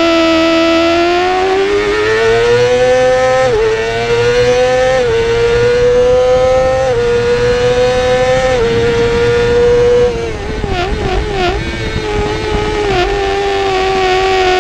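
A 2017 Yamaha YZF-R6's inline-four engine at racing revs, climbing in pitch and dropping back sharply as it upshifts about four times. About ten seconds in the throttle closes and the revs jump up and down quickly as it changes down, before it picks up again near the end.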